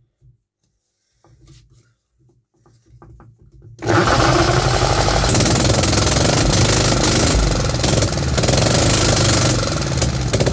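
Home-built 3D-printed 125cc single-cylinder four-stroke engine starting suddenly about four seconds in, after a few faint low knocks, then running loud and steady.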